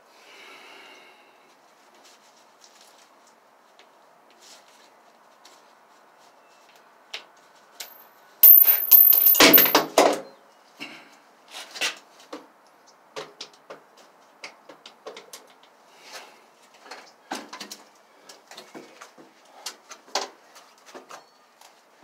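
Work on a stuck screw in a metal door hinge. About eight seconds in comes a loud rasping grind of about two seconds with a thin high whine at its start. It is followed by a string of short clicks and taps as the tool works the screw loose.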